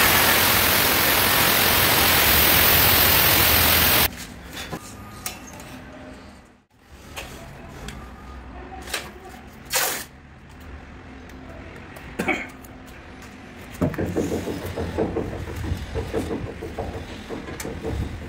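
Angle grinder with a stone-cutting disc cutting through the edge of a black granite slab: a loud, steady grinding that stops abruptly about four seconds in. After it, quieter scraping and handling sounds with a few sharp knocks.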